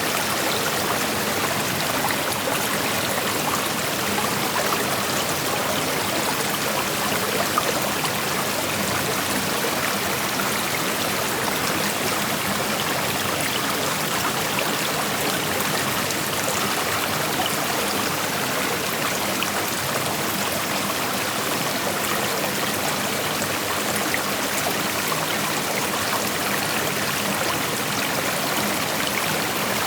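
Creek water flowing and splashing over stones, a steady rushing with fine trickling detail.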